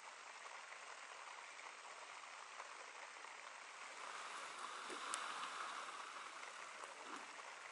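Light rain falling steadily, a soft even hiss that swells a little from about four to six seconds in, with one faint tick partway through.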